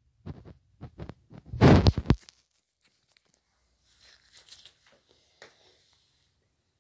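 Short bursts of rustling and scraping close to the microphone, the loudest and longest about a second and a half in, followed by a few faint rustles as the phone is moved.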